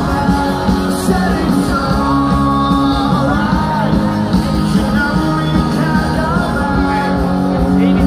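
A rock band playing live through a festival PA, with singing over guitars, bass and drums, heard from in the audience.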